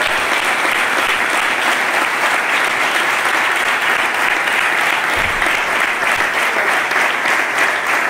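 A large audience applauding steadily.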